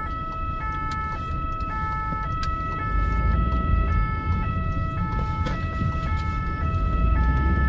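Ambulance two-tone siren alternating high and low, each tone about half a second long, heard from inside the moving ambulance over engine and road rumble. A steady high tone runs underneath.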